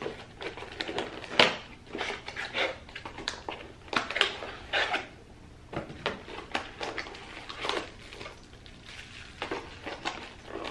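Cardboard packaging being handled and opened: an irregular run of scrapes, rustles and taps as a small shipping box is opened and a white product box is taken out, with a sharp knock about a second and a half in.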